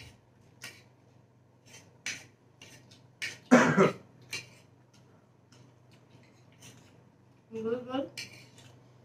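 Fork and spoon clicking and scraping against plates as two people eat chow mein. There is a loud cough about three and a half seconds in, and a short burst of voice near the end.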